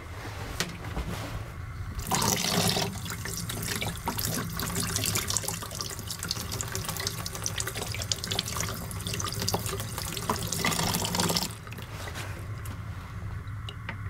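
Water running from a sink faucet and splashing over a hand into the basin, a steady rushing that starts about two seconds in and is shut off near the end.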